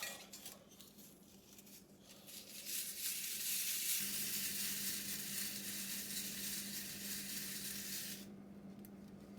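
Wire-feed (MIG) welder arc crackling and sizzling steadily for about six seconds as a weld is laid, then stopping abruptly; a low hum from the welder runs beneath it.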